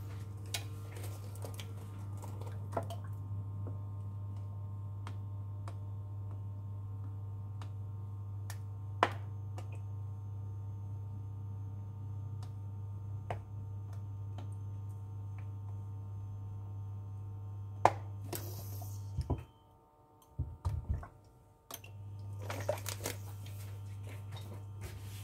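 Steady electrical hum of a glass-top electric hob heating a pan of oil. The hum cuts out for about two seconds late on, then resumes. Scattered light clicks and knocks sit over it, with a short rustle near the end.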